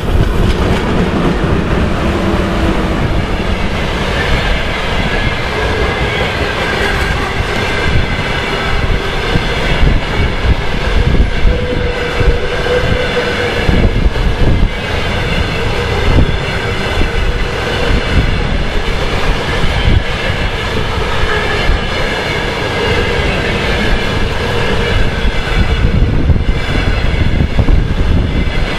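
A passenger train rolls steadily past close by. The 2ES4K electric locomotive's rear section goes by first, then a long line of passenger coaches. Wheels clatter over the rail joints, and a thin wheel squeal comes and goes over the rumble.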